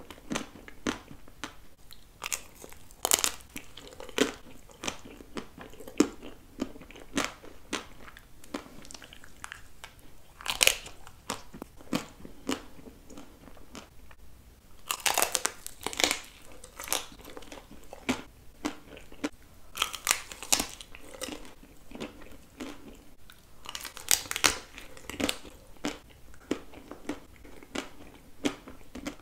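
Close-miked biting and chewing of a chocolate-coated ice cream bar: the hard chocolate shell cracks and crackles with each bite, with chewing in between. Several louder clusters of cracking stand out among the steady small crackles.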